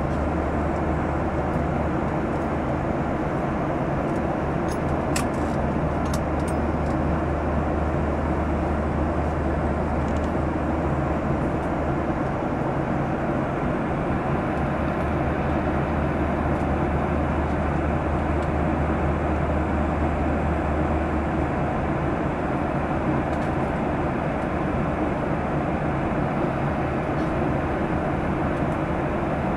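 Steady rushing cabin noise of an aeroplane in flight, heard from a window seat. A low hum underneath drops away about two-thirds of the way through.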